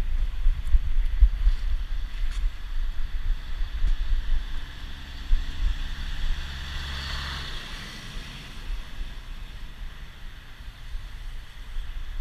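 Wind buffeting the microphone of a back-mounted action camera, a low gusty rumble. It gives way to a steady low hum, and a hiss swells and fades about seven seconds in.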